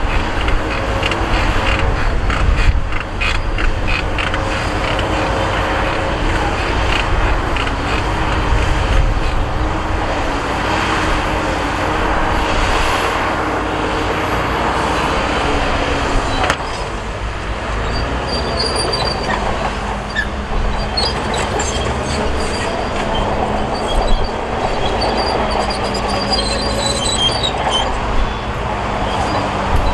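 A heavy diesel earthmoving machine working, its engine running as a steady low rumble whose pitch shifts about halfway through. There is a clatter of metal clicks in the first few seconds and faint high squeals later on.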